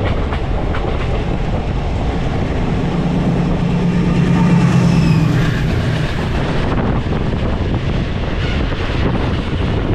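A WDG6G diesel freight locomotive passing close by on the next track, its engine drone swelling to a peak about four to five seconds in and fading, followed by its freight wagons running past. Under it runs the steady rumble and clatter of the moving train.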